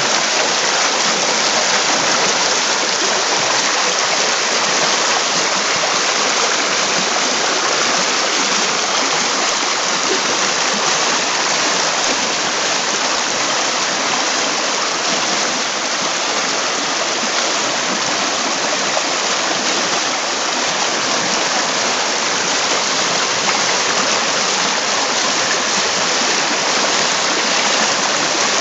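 Shallow river rushing over a stony riffle: a loud, steady hiss of running water that does not change.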